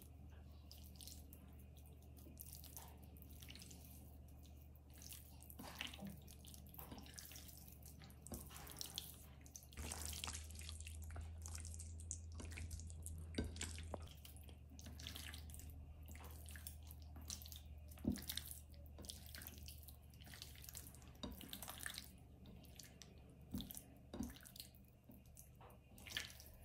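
Raw chicken being squeezed and turned by hand in a wet spice marinade: irregular squelching and slapping of wet meat, over a low steady hum.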